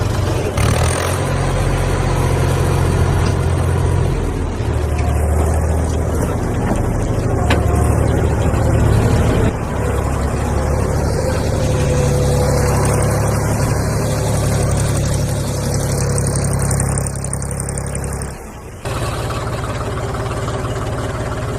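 Vehicle engine running steadily with a low drone that shifts a little in pitch, cut off abruptly about three-quarters through and replaced straight away by a similar engine sound.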